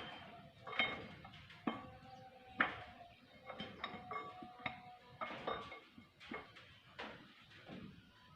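Metal tools and engine parts being handled during repair work: a series of sharp metallic knocks and clinks, roughly one a second, some leaving a brief ringing tone.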